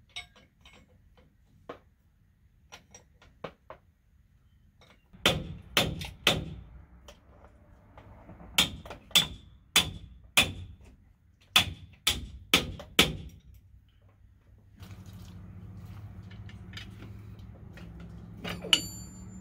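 Sharp metal knocks and clanks from work on a monster truck's axle hub and steering knuckle: a few light taps, then about ten loud ringing knocks in two quick runs. A steady low hum comes in about three quarters of the way through, and one last ringing metallic clank sounds near the end.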